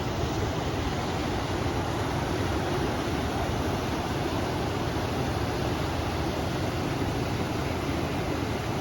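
River water rushing in a steady, even noise, with wind.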